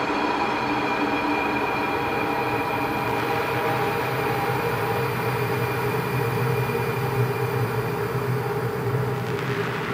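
Underground train running: a steady rushing noise with a low hum and several steady whining tones that shift slowly as it travels.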